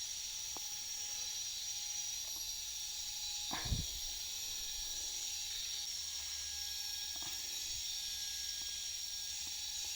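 Steady high-pitched drone of forest insects, with one short dull thump about three and a half seconds in.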